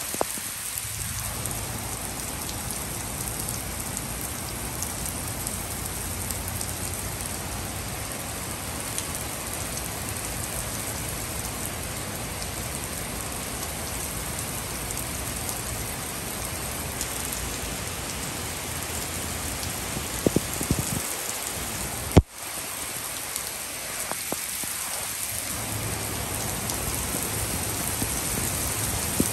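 Heavy rain pouring steadily onto a wooden deck, a constant hiss with a few louder drips. A single sharp click and a brief dip in level come about three-quarters of the way through.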